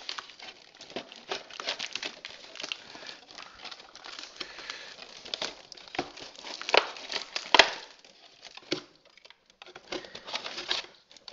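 Cardboard and plastic packaging rustling and crinkling as a toy robot is worked out of its box, with irregular clicks and knocks of plastic against cardboard. The sharpest knocks come a little past the middle, followed by a short quieter spell.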